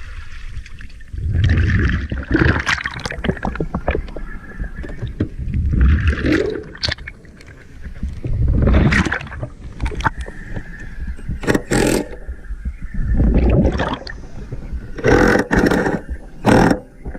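Impact wrench running in about five short bursts of one to two seconds each, hammering as it loosens bolts, with pauses between runs.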